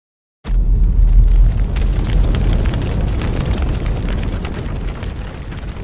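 Explosion sound effect: a sudden loud rumbling blast about half a second in, with crackling through it, slowly dying away.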